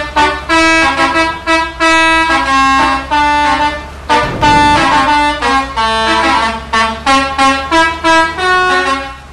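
Bus telolet horn: a bus's set of multi-tone air horns playing a quick melody of short notes, some sounding together, over a steady low hum. A short low rumble comes about four seconds in.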